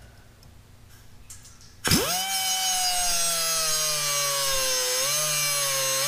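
Pneumatic cutoff tool with a 3-inch cutoff wheel starting up suddenly about two seconds in and running as a high whine. The whine sags slowly in pitch as the wheel bites into the cheap steel jaws of a pair of crimping pliers.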